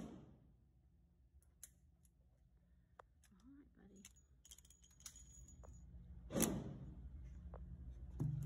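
Small metallic clicks and clinks as a .38 Special snub-nose revolver and spent brass are handled at a shooting-range bench. A single gunshot rings out about six and a half seconds in, with a short echo, and there is a knock near the end.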